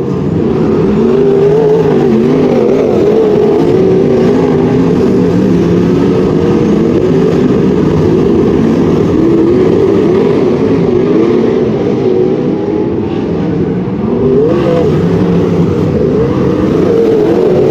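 Wingless sprint cars racing: several engines running hard together, their pitch rising and falling over and over, with a brief dip about fourteen seconds in.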